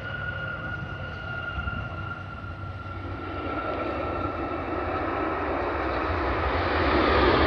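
Airbus A320neo's jet engines on the landing roll: a steady high whine slowly sinking in pitch, then a broad roar building from about three seconds in and growing louder as reverse thrust is applied to slow the airplane.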